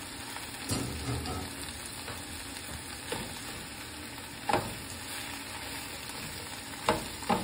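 Chard leaves sizzling in olive oil in a skillet as they wilt, with a slotted spatula stirring them and knocking against the pan several times.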